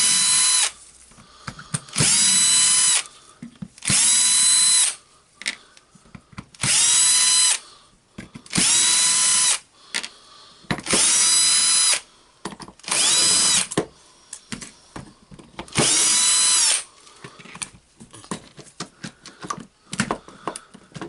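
Cordless electric screwdriver run in eight short bursts of about a second each, each one spinning up and winding down, backing out the screws of a drill's handle housing. Small clicks and rattles of parts between the bursts.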